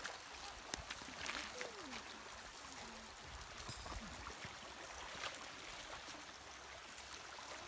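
Water rushing over rocks in a river current, a steady even hiss.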